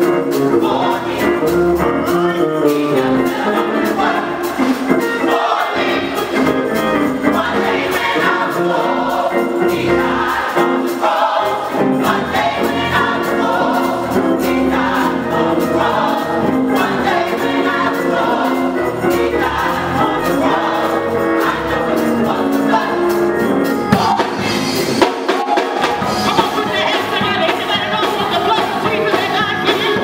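Gospel choir singing in harmony with a live band of drum kit, electric bass guitar and keyboard, keeping a steady beat. The bass end drops away for a moment about 25 seconds in.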